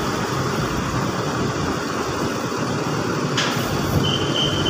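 Large coach's diesel engine running as the bus pulls slowly away, a steady rumble. A short sharp sound comes about three and a half seconds in, and a brief high steady tone near the end.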